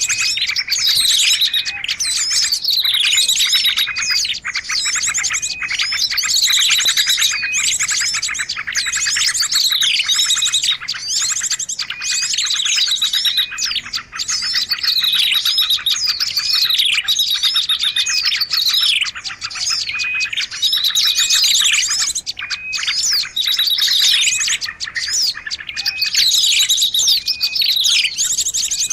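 Songbird singing without pause: quick downward-sweeping whistles and rapid trills repeated over and over, in the style of a masteran track used to teach new phrases to captive songbirds.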